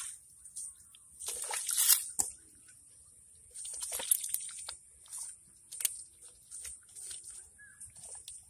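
Wet mud squelching and sloshing as a bowl is pushed and scraped through it and hands dig into the mud, in short irregular bursts with small knocks and clicks.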